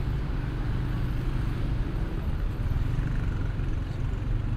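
Street traffic: a steady low rumble of vehicle engines and tyres.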